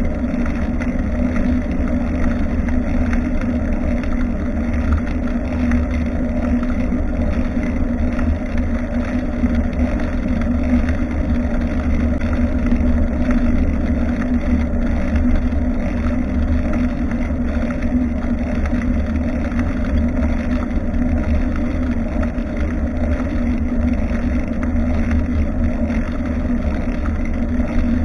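Steady rumbling road and wind noise from a moving bicycle, heard through an action camera mounted on the bike's rear, with no break or change.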